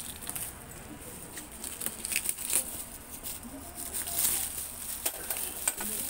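Clear plastic wrap crinkling and a cardboard box rustling as the washing machine's box is handled for opening. The crackles come unevenly, sharpest a little after two seconds in and again past four seconds.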